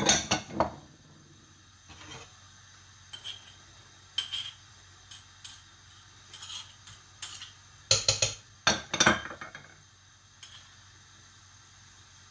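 Small ceramic bowls knocking and clinking against the rim of a stainless steel stockpot as their contents are tipped in, in scattered bursts, the loudest clatter about eight to nine and a half seconds in.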